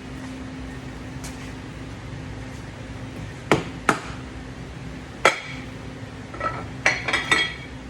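Metal hand tools and engine parts clinking against each other and the bench: three separate sharp clinks, then a quick run of ringing clinks near the end, over a steady hum.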